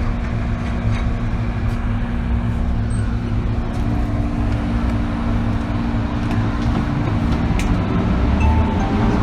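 Inside the car of an MTR M-Train electric multiple unit running along the line: steady low rumble of wheels on track, with a faint humming tone from the traction equipment.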